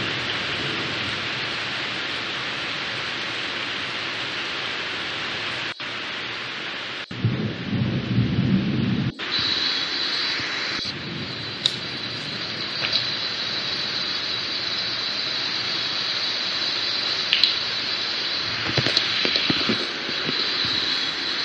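Steady rain during a thunderstorm, with thunder rumbling about seven seconds in and again near the end. The sound cuts out abruptly a few times where the playback is skipped.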